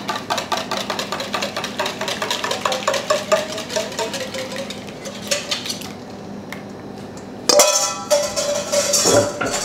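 Wire whisk scraping and clinking rapidly against a stainless steel mixing bowl as egg mixture is scraped out. Near the end comes a sudden louder metal clang with ringing.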